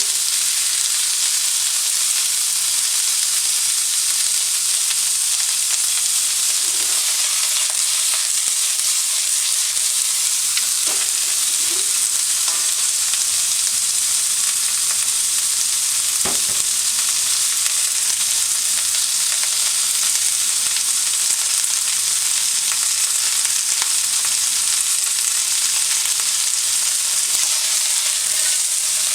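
Food sizzling steadily in hot oil in a hammered iron wok as it is stir-fried, with a few light clicks and one sharper knock about halfway through.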